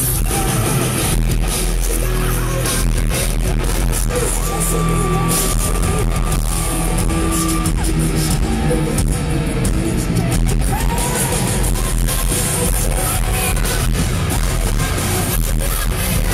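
Live metal band playing loudly, drums hitting throughout, heard from among the arena crowd.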